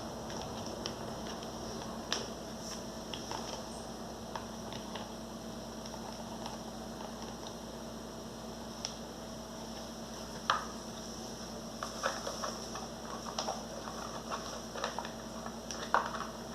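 Scattered small clicks and a few light knocks of the Arno blender's plastic base parts being handled and pressed together as the housing is closed up.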